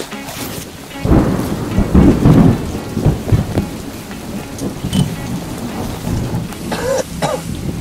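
Wind buffeting the microphone over choppy open water: an irregular low rumble, heaviest about one to three seconds in.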